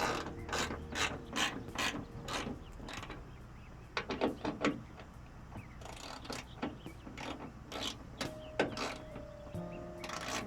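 Socket ratchet wrench clicking as a bolt is turned, in several runs of quick clicks with short pauses between them.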